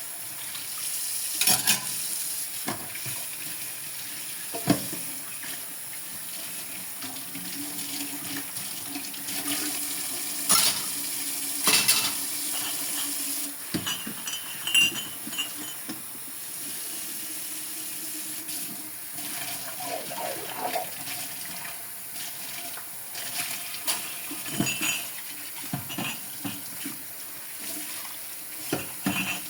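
Tap water running into a sink while dishes are washed, with scattered clinks and knocks of dishes and utensils against each other and the sink.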